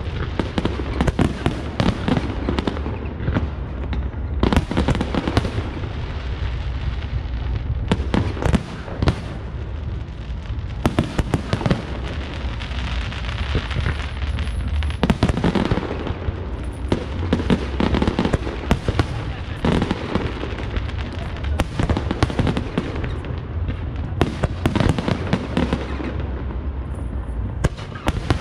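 Fireworks display: aerial shells bursting one after another, many bangs in quick succession over a steady low rumble.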